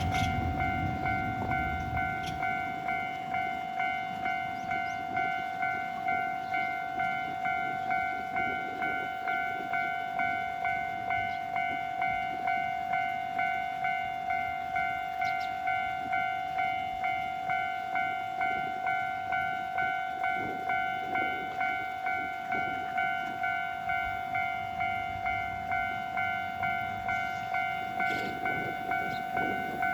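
Japanese railway level-crossing warning bell, an electronic alarm ringing its normal tone: an even repeating ding, a little faster than once a second.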